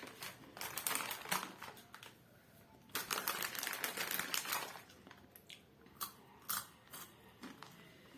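Takis rolled tortilla chips being bitten and chewed, a crisp crunching in two dense spells, the first starting just after the beginning and the second from about three seconds in, then a few single crunches near the end.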